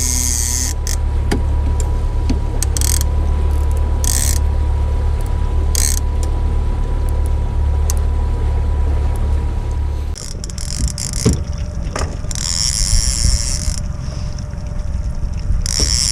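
Boat motor running with a steady low hum that drops away about ten seconds in. Short bursts of high hiss and clicks sound over it, with a fishing rod and reel at work as a fish is hooked.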